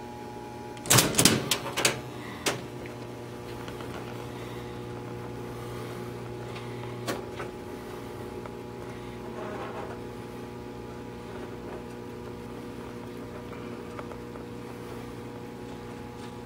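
Seeburg M100C jukebox mechanism: a clatter of clicks and clunks about a second in as a selection is keyed on the buttons and registered. Then the Select-o-matic 100 mechanism runs with a steady motor hum while it goes for the record, with a single click about seven seconds in, after which the low hum drops.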